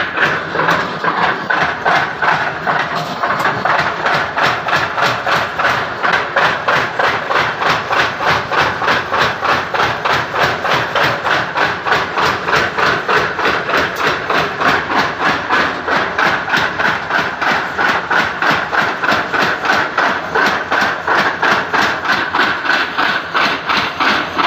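Blacksmith's mechanical power hammer striking steadily and rapidly, about three to four blows a second, with the machine running underneath.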